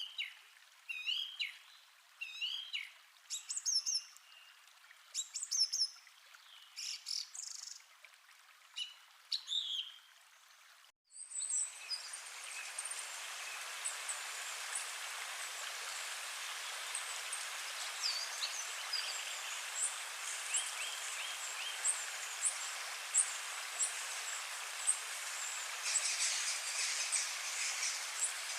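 Forest ambience: birds singing and chirping in short phrases. About a third of the way in, the sound cuts briefly and gives way to a steady rush of a gentle stream, with birds still chirping over it.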